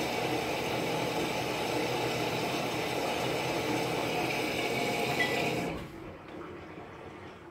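Whirlpool Duet HE3t front-loading washer running at startup: a steady hum with a hiss that cuts off sharply about six seconds in. Faint ticking follows near the end.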